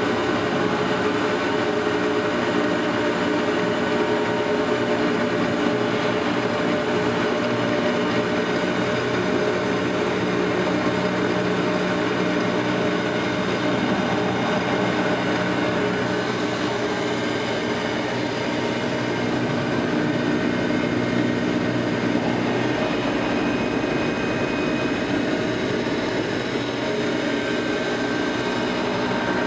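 A 200-litre vacuum homogenizer emulsifier mixer running with water in the vessel, with its homogenizer switched on: a steady machine drone with several held tones that does not change.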